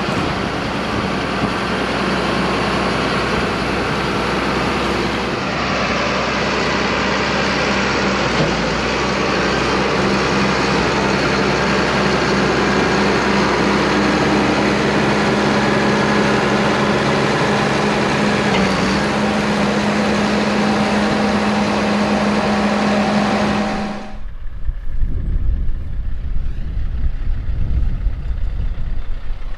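Heavy diesel farm machinery running steadily with a constant drone. About 24 seconds in the sound cuts off abruptly, and an uneven low rumble follows.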